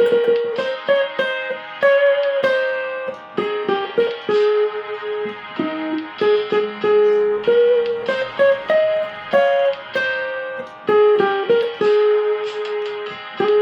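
Cavaquinho picking a hymn melody in single plucked notes, some short and quick, others held and left to ring.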